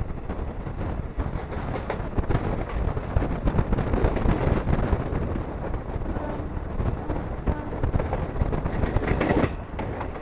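Passenger express train running on the rails: a steady rumble of the coach with a dense run of wheel clicks and clatter, and one sharper clatter about a second before the end.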